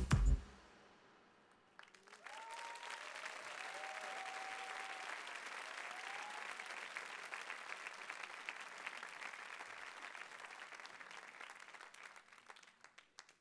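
Electronic dance music cuts off just after the start, and after a short pause an audience breaks into applause with a few cheers, the clapping fading away near the end.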